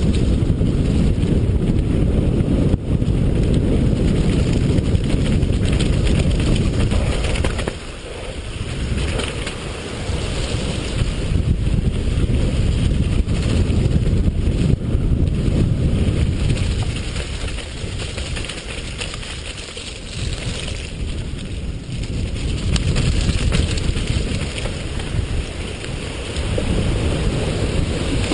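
Wind buffeting the microphone of a mountain biker's camera during a fast downhill run, mixed with the tyre rumble and rattle of the bike over a loose gravel trail. The noise eases briefly about eight seconds in and again around twenty seconds.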